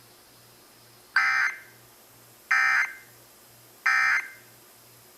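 Emergency Alert System end-of-message (EOM) tones: three short bursts of buzzing SAME digital data, about 1.3 seconds apart, signalling that the alert is over.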